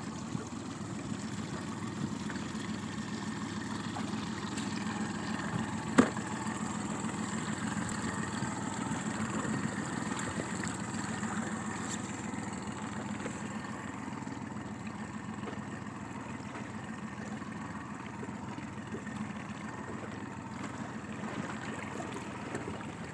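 A boat's engine running steadily at low speed while trolling, a continuous even hum. A single sharp click sounds about six seconds in.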